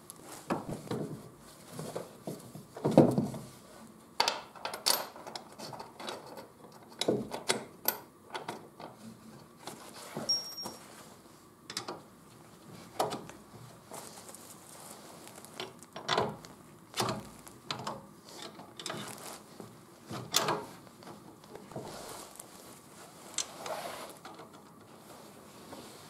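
Hand tools and metal suspension parts being handled and fitted: irregular clinks, clicks and knocks, the loudest about three seconds in.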